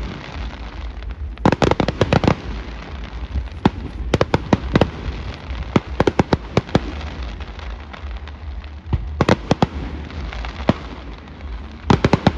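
Fireworks display going off: clusters of sharp bangs and crackles every second or two, over a steady low rumble.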